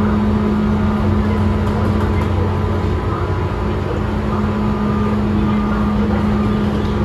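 Tobu 9000 series electric train running, heard inside a motor car: steady rail and running noise under a constant low hum from its chopper control, the 201-series-like chopper sound.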